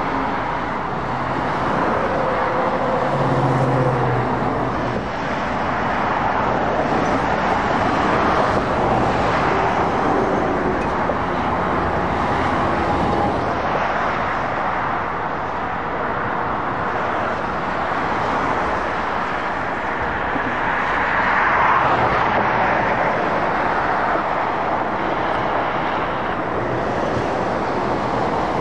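Steady motorway traffic: heavy lorries and cars rolling past, a continuous tyre-and-engine road noise that swells gently as each vehicle draws close, with a low diesel engine hum near the start.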